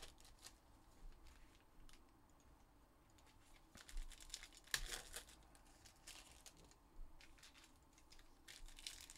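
Faint crinkling and tearing of foil trading-card pack wrappers as packs are ripped open and handled, with a few short, louder rustles about four and five seconds in.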